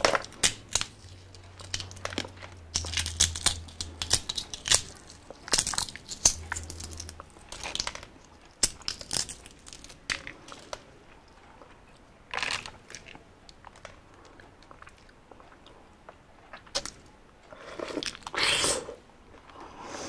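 Balut (boiled fertilised duck egg) shell cracking and being peeled by hand, close up, in irregular clusters of sharp crackles, with biting and chewing in between.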